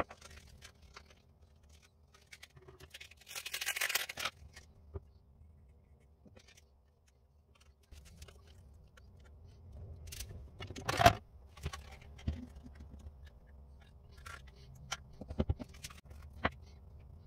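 Coarse sandpaper being handled and fitted around a wooden sanding drum: a rustling scrape of abrasive paper lasting about a second, scattered small taps and clicks, and one sharp knock about two-thirds of the way in.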